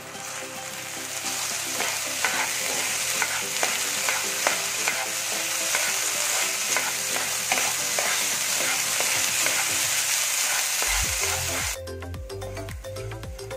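Freshly washed split green gram (moong dal) sizzling as it fries in a nonstick pan, stirred with a wooden spatula, with many small scrapes and rattles of the lentils. The sizzle cuts off suddenly near the end, leaving background music.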